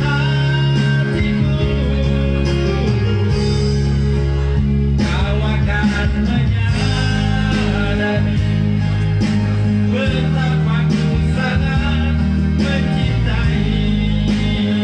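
A man singing into a microphone over amplified backing music with held bass notes.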